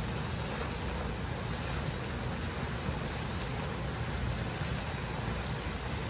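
Geyser in full eruption: a steady rush of water jetting up and spraying down onto the rock, without let-up.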